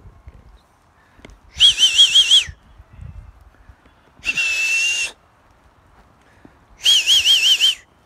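Three loud whistles about a second apart, each close to a second long: the first and last warble quickly up and down on a high note, the middle one is held on a single steady note.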